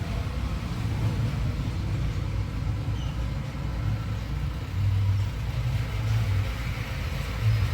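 Steady low rumble of a motor vehicle, swelling unevenly now and then, with no high-pitched whine over it.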